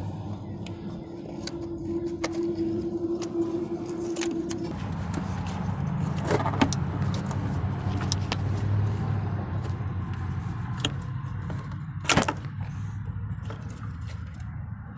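A car engine idling steadily, with a higher tone over it for the first few seconds, under scattered clicks and light rattles of parts being handled. One sharp click comes about twelve seconds in.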